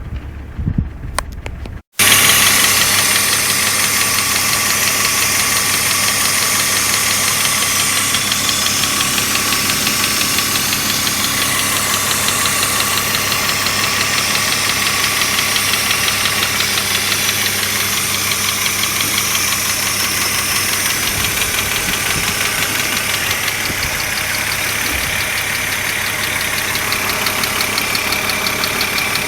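An engine running steadily with a fast, even pulse. It starts abruptly about two seconds in, after a short stretch of low rumble and clicks.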